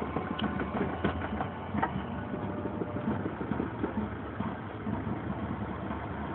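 A high school marching band heard faintly from a distance, with held notes and scattered drum hits, over a steady low rumble.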